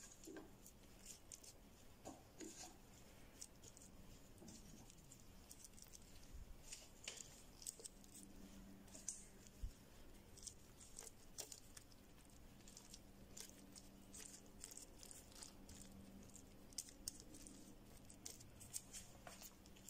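Faint, scattered small clicks and rustles of a hand in a plastic glove laying carrot slices into a pot of rolled grape leaves, over a faint steady hum.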